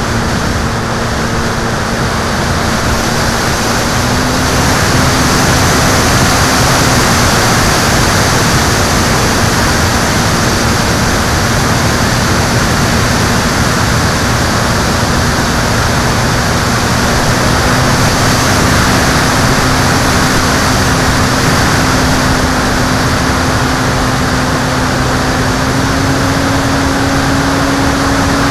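A motorized watercraft's engine running steadily at speed under a heavy rush of wind and water noise, its pitch creeping up and stepping higher near the end.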